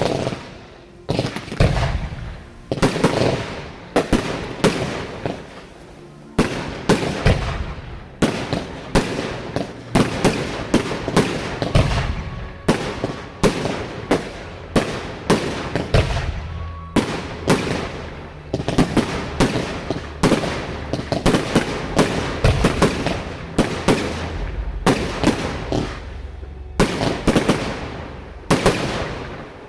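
Fireworks display: aerial shells bursting in quick succession, about one to two loud bangs a second, each trailing off in echo.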